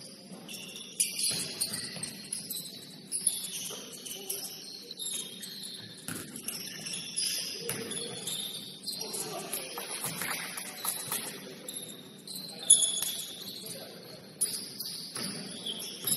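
Basketball shoes squeaking on a gym floor in short, high-pitched chirps during play, with scattered thumps, one louder knock about three-quarters of the way through.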